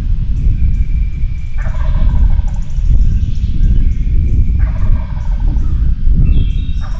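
Wild turkey gobbler gobbling repeatedly, about every three seconds: two full gobbles and another starting near the end. A loud low rumbling noise runs underneath.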